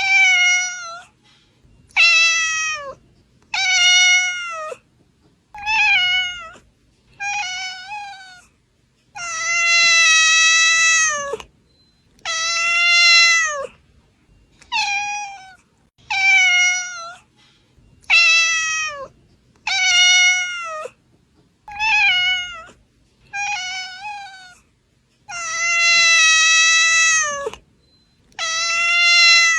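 A domestic cat meowing over and over, about one meow every two seconds. Most are short, and a few are long, drawn-out meows that drop in pitch at the end.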